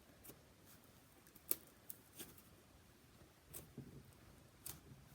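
Faint, scattered small clicks and sticky pops from butter slime being handled, about seven in five seconds, the sharpest about a second and a half in.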